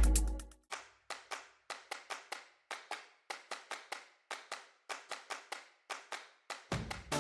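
A break in electronic background music: the bass-heavy track fades out, leaving only sharp clap-like percussion hits at about three a second. The full beat with bass comes back near the end.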